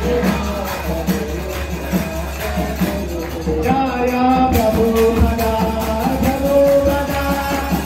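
Devotional kirtan music: voices singing a chant over a steady beat of jingling hand percussion.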